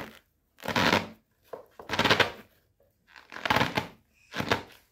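Hard plastic parts of a suction sit-up bar being twisted and pushed together: four short scraping rasps of plastic on plastic, roughly a second apart.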